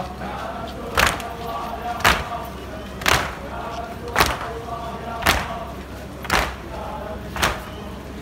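A crowd of mourners beating their chests in unison (latm), a sharp slap about once a second, seven strokes in all, over a faint murmur of voices.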